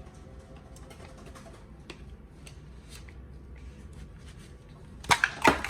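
Toy packaging handled by hand: light crinkles and small clicks, then two or three loud sharp crinkles about five seconds in.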